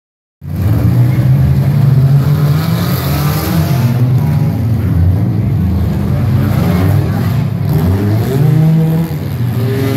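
Several stock-car engines revving hard and accelerating together as the pack of tuff cars pulls away, pitches rising and falling unevenly.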